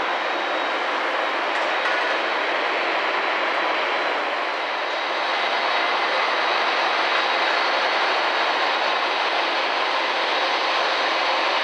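Steady jet-aircraft noise across an airport apron: an even rushing hiss with a thin, high steady whine on top. It dips slightly about five seconds in, then comes back a little louder.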